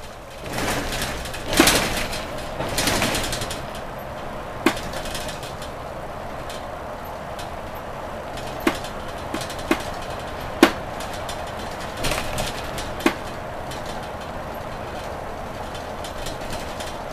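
Inside a Mercedes-Benz Citaro G articulated bus on the move: steady engine and road noise with a low hum, swelling louder for the first few seconds. Several sharp knocks and rattles from the cabin are scattered through it.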